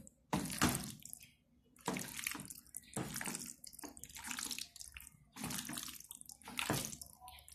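Wet squelching of raw chicken breast pieces being squeezed and kneaded by hand in a black pepper sauce marinade, coming in irregular bursts about once or twice a second.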